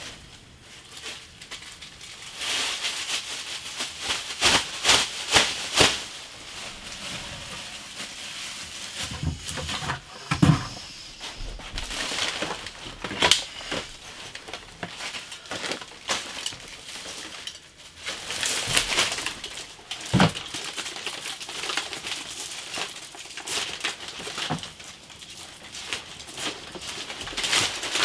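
A large plastic bag rustling and crinkling as it is handled and lifted, with scattered clicks and a few louder knocks, about 10 and 20 seconds in.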